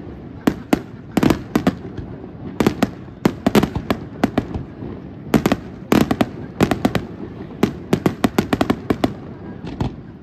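Aerial fireworks display: shells bursting in quick, irregular succession, several sharp bangs a second, each trailing off in a rumble.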